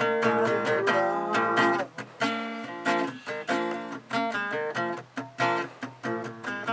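Acoustic guitar playing a blues tune. A busy run of notes and strums, then short strummed chord stabs with brief stops between them.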